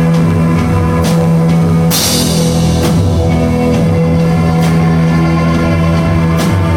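Live rock band playing loud, with drums and guitar over a steady low bass drone, and a cymbal crash about two seconds in.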